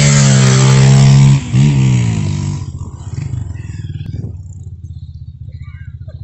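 Dirt bike engine revving hard, held at high revs for over a second, then a short break and a second rev that falls away. After that a low, steady engine putter continues, with faint high chirps over it.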